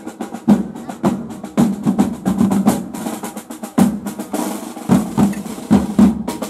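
A corps of wooden-shelled medieval parade drums played on the march, beating a steady rhythm of loud accented strokes with rolls between them.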